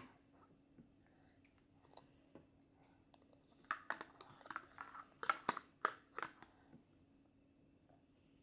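A toddler eating yogurt with a plastic spoon: soft wet mouth smacks and the spoon scraping and clicking in the plastic yogurt cup, a few isolated clicks at first, then a quick cluster of them from about four seconds in to past six seconds.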